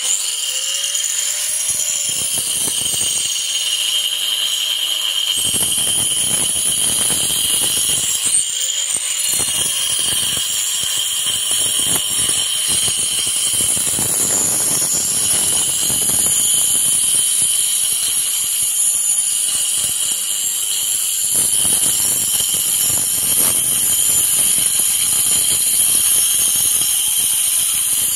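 Corded angle grinder fitted with a double blade cutting a channel into a brick wall for electrical wiring: a steady high motor whine over gritty grinding of brick, the grinding fuller from about five seconds in.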